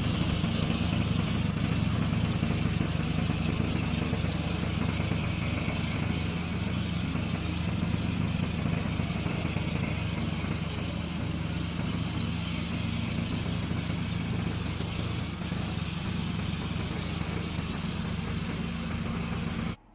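Remote-controlled tracked mower's engine running steadily, a constant low engine drone with a broad noisy hiss over it. It stops abruptly near the end.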